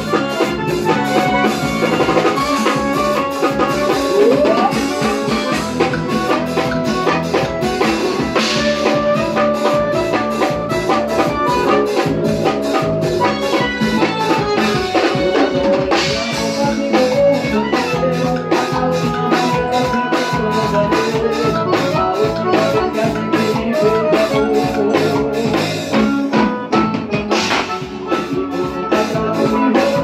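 Live forró band playing: piano accordion melody over drum kit and electric bass, with a steady, driving dance beat.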